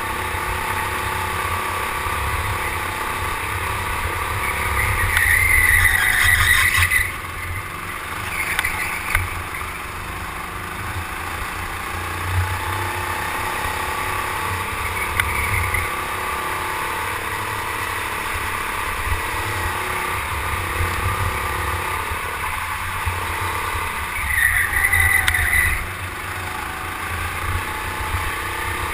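Go-kart running at racing speed, heard from a camera mounted on the kart: a steady drone over heavy low rumble. Twice it gets louder with a high whine, about five seconds in and again about 24 seconds in, and each time the whine cuts off suddenly.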